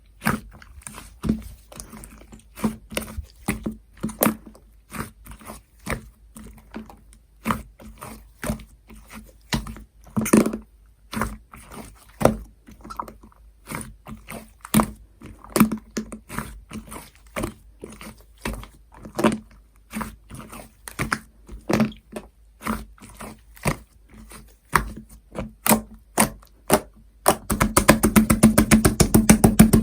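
Slime being pressed, stretched and poked by hand, giving sharp wet clicks and little air-pocket pops at irregular spacing. Near the end the clicks come in a fast, dense run for about two seconds.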